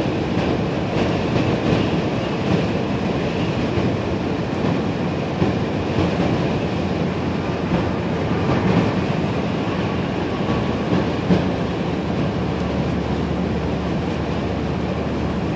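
Steady tyre and road rumble inside a moving car's cabin, with a few faint ticks.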